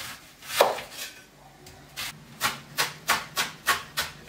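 Chef's knife chopping a white onion on a wooden cutting board: one stroke about half a second in, then a quick run of even knife strikes, about three a second, from about two seconds in as the onion is diced fine.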